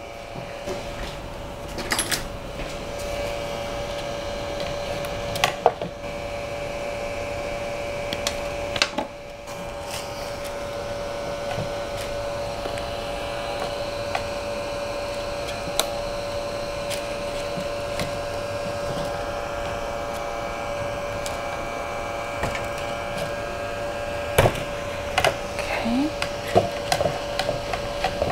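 Creality CR-100 mini 3D printer, switched on, giving off a steady electrical hum while filament is fed into it by hand. Scattered clicks and plastic taps of handling come and go over the hum, with a run of them near the end.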